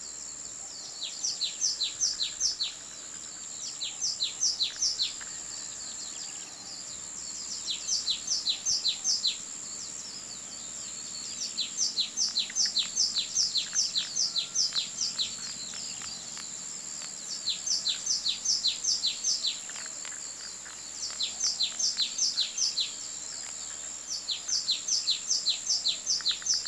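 A bird singing in seven bouts, each a quick series of sharp, down-slurred chirps at about five a second, one bout longer than the rest. A steady high-pitched whine runs underneath the whole time.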